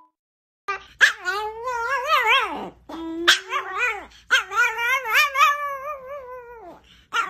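A small white dog howling in three long, wavering notes, with a man howling along with it.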